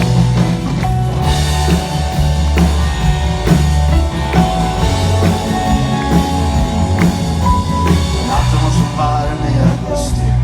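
Rock band playing an instrumental passage of a song, with a drum kit keeping a steady beat under sustained instrument lines and no lead vocal.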